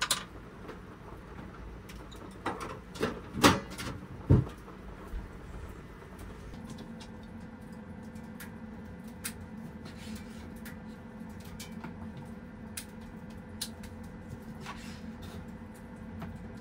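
A few loud knocks and clatters of things being moved and set down on a wooden shelf, then a knife tapping now and then on a cutting board as small fruit is sliced. A steady low hum sets in after about six seconds.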